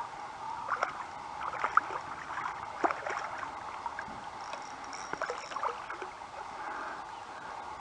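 Water sloshing and splashing around a kayak, with irregular knocks and clatter against the hull over a steady rush of flowing river water.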